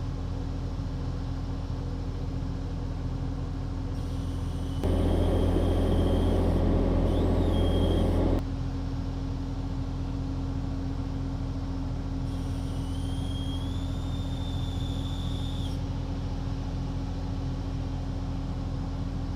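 Excavator's diesel engine running steadily. About five seconds in it gets louder for three or four seconds as it works harder, and a thin high whine comes and goes twice, once during that stretch and again a little past the middle.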